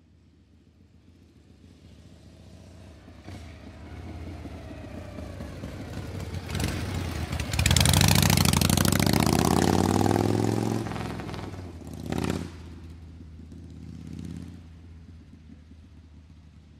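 Metal gears shifting and grinding: a mechanical rumble builds up, then a loud whirring stretch with rising pitch in the middle, with sharp metallic clanks before and after it and a fade near the end.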